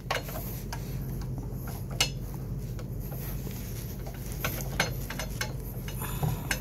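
Scattered metallic clicks and clinks from hands working brake pads and parts in a motorcycle's front disc brake caliper. The sharpest click comes about two seconds in, over a low steady hum.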